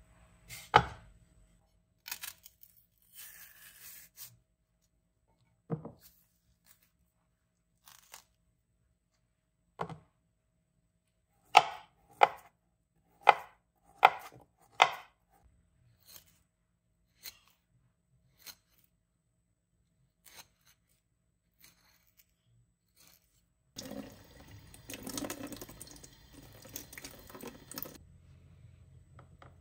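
Chef's knife slicing a banana on a wooden cutting board: a run of five sharp taps of the blade on the board, about two-thirds of a second apart, with a few scattered knocks before them. Near the end, a few seconds of tap water running over a cut avocado half.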